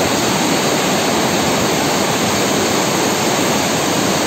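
Snowmelt water gushing out from under the rock and cascading over boulders in a narrow rocky chute: a loud, steady rush.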